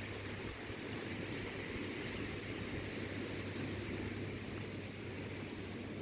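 Wind blowing steadily, an even rushing noise with a constant low hum beneath it.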